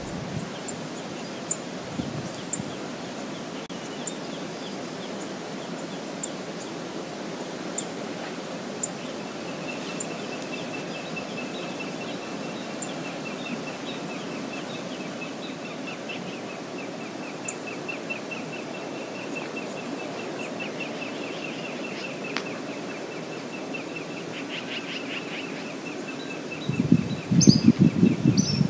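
Steady rush of river water, with a small bird's high, fast trill running through the second half and a few short high bird calls near the end. A louder low rumbling burst comes just before the end.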